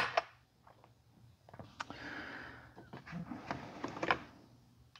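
Steel roll pin punches clicking lightly against each other and the plastic case as they are picked out of and put back into a punch set. The light clicks come in scattered groups, with a short soft rustle about two seconds in.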